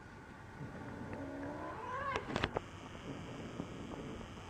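A cat yowling during rough play-fighting with another cat: one drawn-out call that rises in pitch about halfway through, followed by a sharp click.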